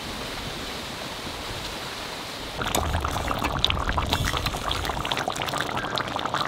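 Chicken curry boiling hard in a large iron kadai over a wood-fired clay stove: a steady bubbling that grows louder about two and a half seconds in, thick with small pops, as a ladle stirs the gravy.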